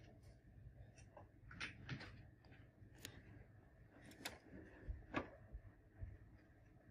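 Faint, irregular clicks and light taps scattered over a quiet background, the sharpest about five seconds in.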